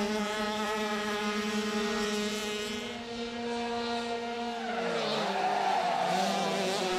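85 cc crosskart racing engines running at high revs, a steady engine note that falls in pitch about five seconds in and then picks up again, with more than one kart's engine heard together.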